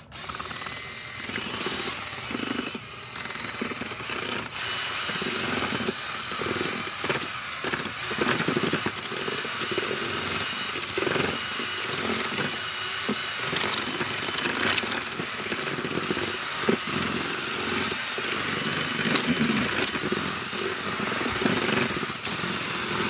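Cordless drill spinning a paddle mixer through thin-set mortar in a plastic bucket. The motor starts at once and runs steadily, its whine wavering slightly in pitch as the load changes.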